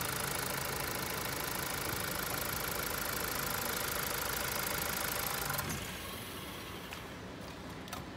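Mazda SKYACTIV car engine idling steadily, then switched off about five and a half seconds in, leaving a quieter background with a few light ticks.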